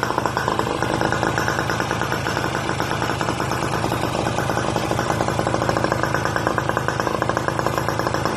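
Suzuki X4 motorcycle engine running steadily with a rapid, even beat.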